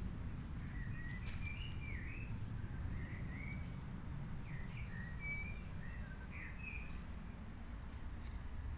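Outdoor ambience with a steady low rumble, and a small bird in the background chirping a run of short, rising-and-falling notes that stop about seven seconds in.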